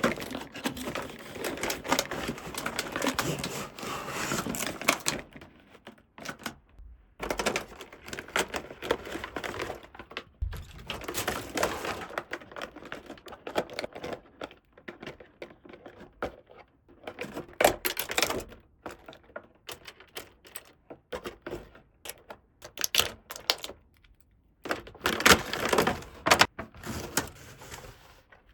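Small plastic toy pieces being handled and unpacked: dense clicking, tapping and rustling in bursts, with short pauses between them.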